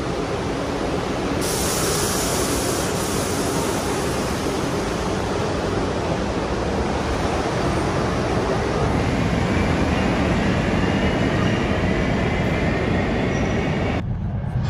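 New York subway train of R62A cars pulling out of an underground station, its wheels rumbling and clattering on the rails, with a faint rising whine as it gathers speed. The sound drops away abruptly near the end.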